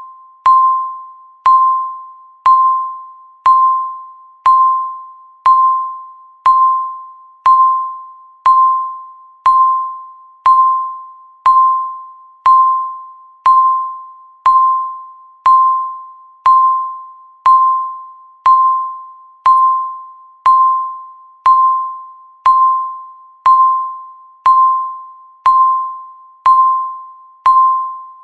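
Countdown timer beeping once a second, each beep marking one second left: a single clear, fairly high electronic tone that starts sharply and fades, repeating evenly at the same pitch.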